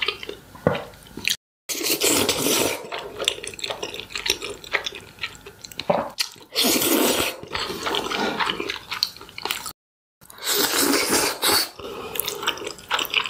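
Slurping and chewing of black bean noodles (jjajangmyeon): several long, wet slurps with smacking chews between them, broken twice by a short gap of dead silence.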